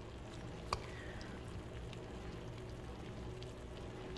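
Faint wet crackling as a metal fork works through tender slow-cooked turkey in a crock-pot, with one sharp click of the fork against the crock a little under a second in.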